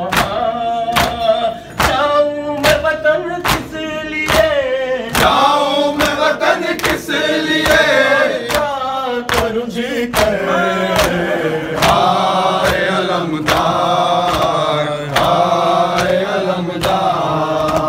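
Men's voices chanting a noha lament, a lead reciter answered by a chorus that grows fuller about five seconds in. Under it run sharp, even beats about every three-quarters of a second, the chest-beating (matam) that keeps time in a noha.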